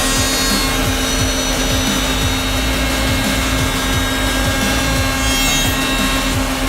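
Three-head CNC mortising machine running, its spindles whining steadily over a constant hum as it cuts mortises in wood.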